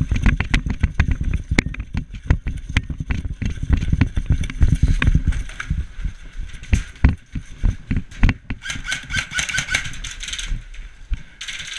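Running footsteps on sand and gravel, a quick run of heavy thuds with gear jostling. After about six seconds the steps thin out to a few slower ones, with a spell of high rattling around nine to ten seconds in.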